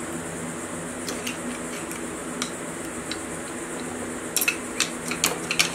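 Metallic clicks and clinks of a socket wrench working the nuts on the cylinder head of a classic Mini's A-series engine, a few scattered at first and a louder cluster near the end.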